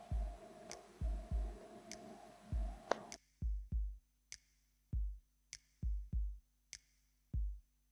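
Electronic background music with a drum-machine beat: deep kick drums, often in pairs, and sharp high hits. Faint room noise underneath cuts out about three seconds in, leaving only the music.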